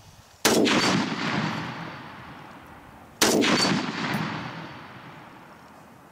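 Two rifle shots from a customized .308 Saiga semi-automatic rifle, a little under three seconds apart. Each sharp report is followed by a long echo that dies away.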